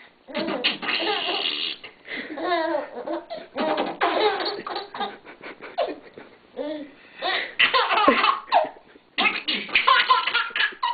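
A baby laughing hard in repeated bouts of belly laughter, with short pauses between them.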